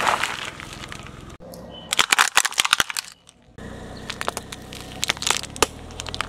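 A car tyre rolling over and crushing things. First paper crumples and crackles, with a quick run of sharp cracks about two seconds in. After a short pause, a low rumble from the rolling tyre carries crunching and cracking as wafer ice-cream cones and plastic toy eggs are flattened.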